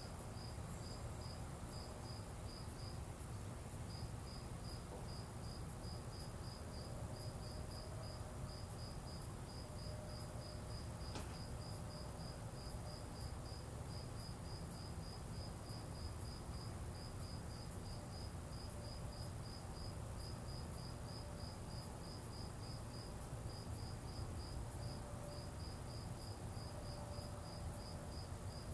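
A cricket chirping steadily, about two short chirps a second, over a low steady rumble, with a single sharp click about eleven seconds in.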